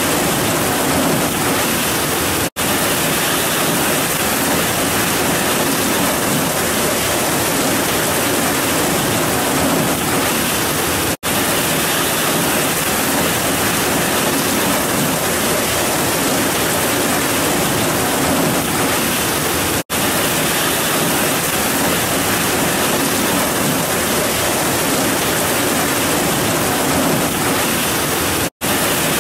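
Heavy rain pouring down steadily, a dense even hiss with no thunder. It is cut by a split-second dropout four times, about every nine seconds.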